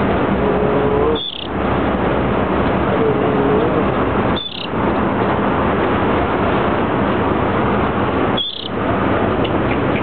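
Steady loud rushing background noise, with three short high chirps from a small bird about a second, four and a half seconds and eight and a half seconds in.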